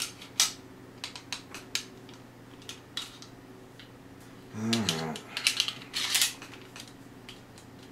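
Scattered sharp metal clicks and scrapes of a Zastava M57A pistol being put back together by hand, its trigger mechanism being worked back into the steel frame. The clicks come thicker a little past halfway.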